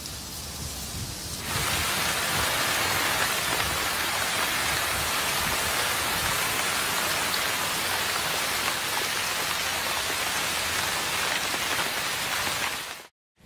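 Steady rain falling, a dense even hiss that grows louder about a second and a half in and cuts off abruptly near the end.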